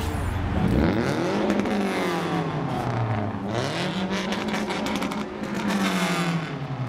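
A parked car's engine being revved: the revs climb quickly and hang high for a couple of seconds, drop briefly, climb again and hold, then fall back near the end.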